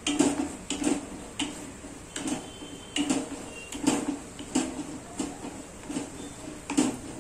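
Spatula stirring thick tomato pizza sauce in a nonstick saucepan, scraping and knocking against the pan a bit under twice a second as the sauce cooks down to its finished thickness.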